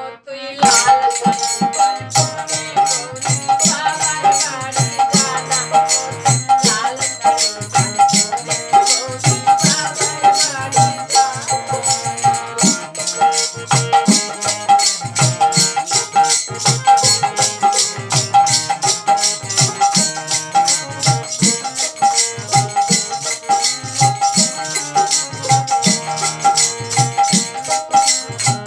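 Live Bengali folk song: a khol barrel drum, a harmonium holding steady reedy chords, and hand cymbals and a rattle keeping a fast, even beat, with a woman singing over it.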